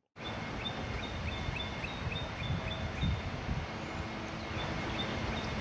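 A bird calling over steady outdoor noise: a quick series of short, high chirps, about three or four a second, over a rushing background with low rumbles.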